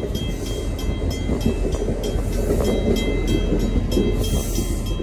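Passenger rail coaches rolling past at close range: steel wheels rumbling on the rails with a steady run of rhythmic clicks.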